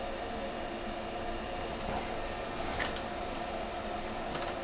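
Steady machine hum with a few even tones, like a running fan, with a couple of faint clicks about midway and near the end.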